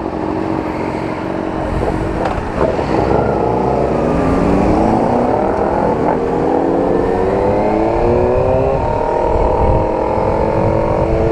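Sport motorcycle engine pulling away and accelerating, its pitch rising steadily for several seconds, then dropping at a gear change about three-quarters of the way through before it settles again. Wind rushes on the microphone throughout.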